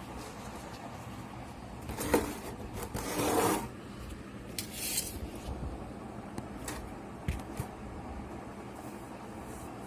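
Handling noise as an audio input cable and gear are picked up and moved: a sharp click about two seconds in, a short rubbing scrape just after, then a few light clicks and taps over a low steady hum.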